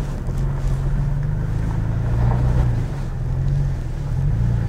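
Toyota Tacoma TRD Pro's 3.5-litre V6 running steadily at low revs as the truck crawls over rock, a low engine drone that rises and falls a little.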